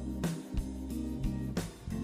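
Background music: plucked guitar over a steady bass line with a regular beat.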